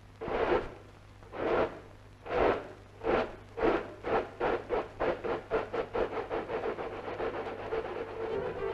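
Steam locomotive pulling away, its exhaust chuffs starting about a second apart and quickening steadily to several a second as it gathers speed.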